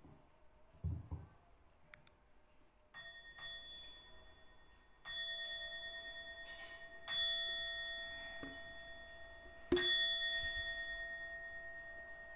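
A Buddhist bowl bell struck four times, about two seconds apart. Each strike leaves a long, slowly fading ring with several clear tones, and the last strike is the loudest. The bell signals the start of the chanting. A low thump comes about a second in, before the first strike.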